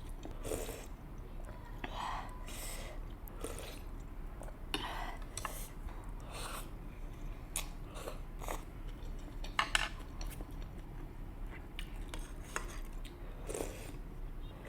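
Close-miked chewing and biting of spicy noodles with dumplings and kimchi: irregular wet mouth sounds, with a few sharp clicks.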